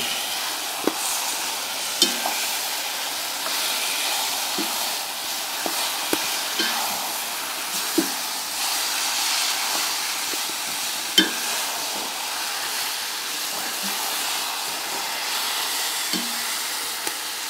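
Eggplant, peppers, onion and carrot sizzling in oil in a kazan as they are stirred, with a steady hiss and occasional short knocks of the spoon against the pot.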